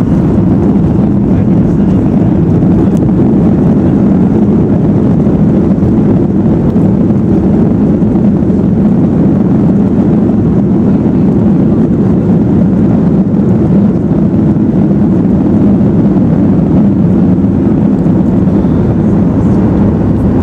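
Steady low rumble inside the cabin of a Boeing 737-800 rolling along the ground after landing, from its CFM56-7 engines and the airframe. The level stays even throughout.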